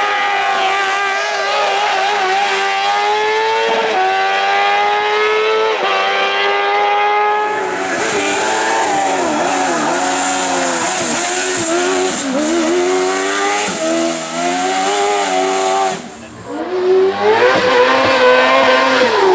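Kart-cross racing buggy's motorcycle engine at full throttle, pitch climbing in steps through the gears, then revs rising and falling quickly as the driver works the throttle. About sixteen seconds in the sound drops away briefly before an engine revs hard again.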